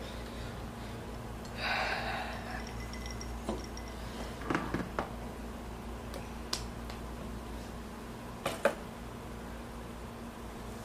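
Quiet room with a steady low hum, a breathy exhale about two seconds in, and a few light knocks and clicks from a drinking glass being handled and set down on a table.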